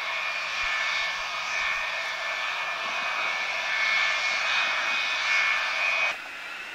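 Boeing 707's jet engines running on the ground as the airliner rolls along the runway: a dense jet hiss with a steady high whine. It cuts off suddenly near the end and gives way to a fainter, slowly rising whine.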